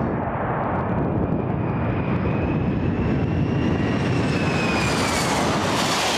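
Four turbofan engines of a C-17 Globemaster III landing and rolling past: a loud, steady rush of jet noise with a whine that slowly rises in pitch and then falls as the aircraft goes by.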